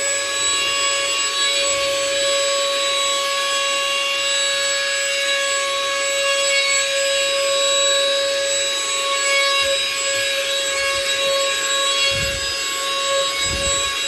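Baseus Capsule handheld car vacuum cleaner running steadily: a constant high motor whine over the rush of air. Two low thumps come near the end.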